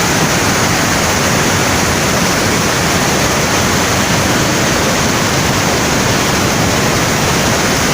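Waterfall swollen with rainwater, the heavy flow of water crashing in a loud, steady rush.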